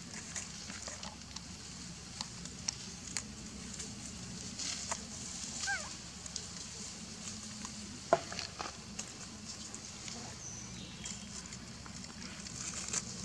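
Scattered small crackles and clicks of dry leaves and grass as young macaques move and groom in leaf litter, over a steady high hiss. A brief squeak comes near the middle and a sharper click about eight seconds in.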